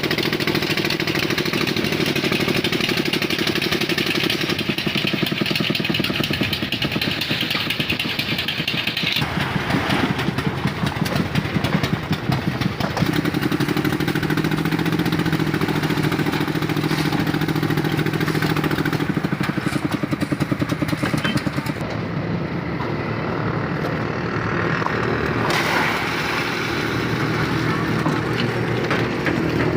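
A motor engine running continuously, its pitch and tone shifting a few times.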